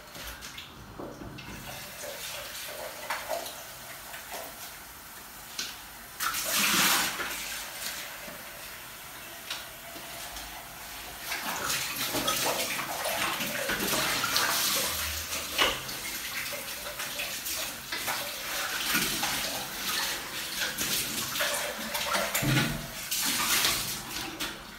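Water running from a kitchen tap, briefly about six seconds in and then for a longer stretch from about halfway, with a few light knocks.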